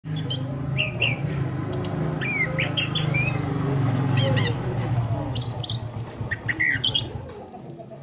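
Chestnut-capped thrush (anis kembang) song: a dense run of quick chirps and short sliding whistles over a steady low hum, thinning out in the last second.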